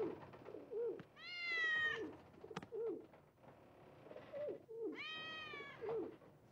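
A cat meows twice, each a long, high meow, about a second in and again about five seconds in, over a dove's soft cooing repeated every half second or so.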